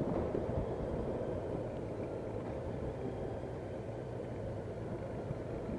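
Motorcycle engine running steadily at low road speed under a low rushing rumble, as the bike slows.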